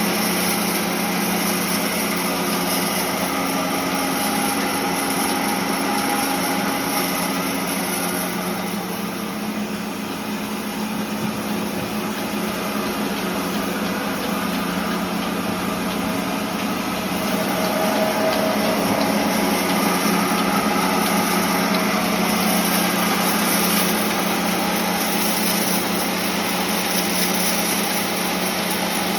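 Sawmill machinery running steadily: a constant hum over dense mechanical noise, getting a little louder past the middle.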